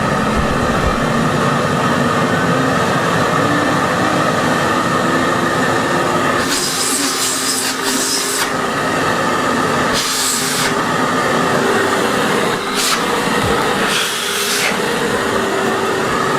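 Eureka Forbes Euroclean WD X2 wet and dry vacuum cleaner running steadily with a high motor whine. Its airflow hisses in short bursts four times in the second half.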